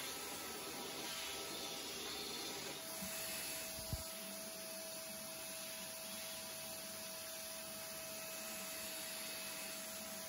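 Cordless wet-and-dry stick vacuum running steadily while sucking dust. A faint steady tone joins in about three seconds in, and there is a brief knock about a second later.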